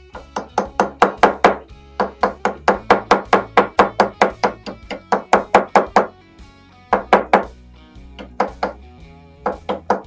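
Small hammer tapping a steel punch against the soft metal of a handbag carabiner clamped in a vise, peening its holding piece around the edge so it no longer slips out of its ring. Quick runs of light metallic taps, about five a second, broken by short pauses, over background guitar music.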